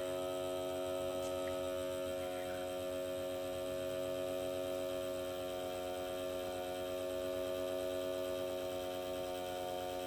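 A homemade alert-system signal sounding continuously after its pull station has been pulled: a steady hum that holds the same pitch throughout.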